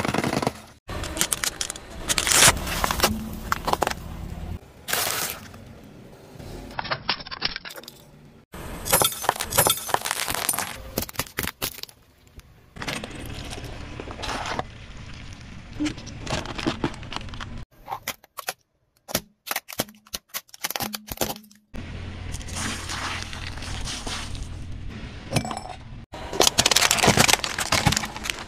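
Car tyre rolling over and crushing objects on concrete: a run of crunches, cracks and crackles as cans, plastic and other items are flattened. It comes in short segments that cut off abruptly one after another.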